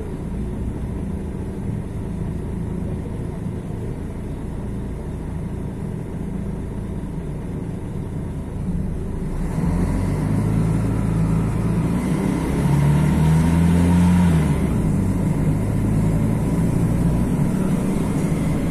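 Mercedes-Benz OM 457 LA six-cylinder turbodiesel of an O-500MDA articulated bus running steadily, then pulling harder about nine seconds in. The engine note climbs and drops back sharply near fifteen seconds, as the Voith DIWA automatic changes up, then runs on steadily.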